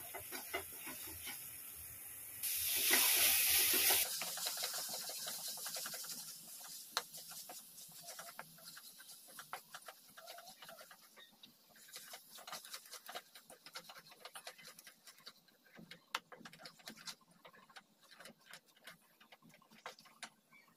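Masala paste of ground onion, tomato and spices sizzling in oil in an aluminium kadhai as a wooden spatula stirs and scrapes it. The sizzle is loudest about three seconds in and cuts off at about four seconds, then gives way to quieter scattered crackles and spatula scrapes while the masala is fried down.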